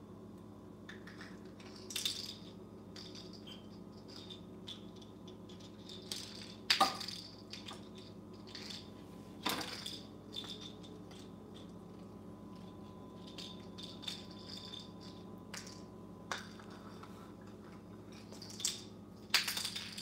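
African grey parrot handling a small wood-and-plastic toy on a tile floor: scattered light clicks and rattles as it is nudged and mouthed, with a few sharper knocks as it hits the tile.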